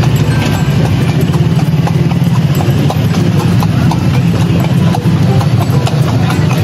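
Hooves of a carriage horse clip-clopping on a paved road as a horse-drawn delman moves along, over a steady low rumble.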